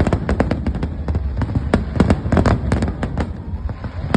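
Fireworks bursting in rapid succession: several sharp bangs and cracks a second over a continuous deep rumble.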